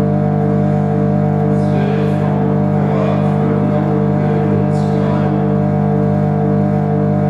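Dense electronic drone from a live-coded Max patch that records, loops and time-stretches sound: steady layered low tones at constant loudness. Two brief noisy swishes come about two and five seconds in.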